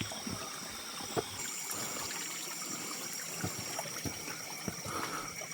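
River water flowing and trickling over rocks, a steady wash of sound, with a few faint clicks and a thin steady high-pitched whine above it.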